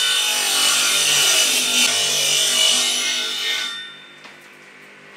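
Table saw ripping a strip off the edge of a long tongue-and-groove cladding board, the blade cutting under load until a little over three and a half seconds in. The saw then runs on much quieter, free of the wood.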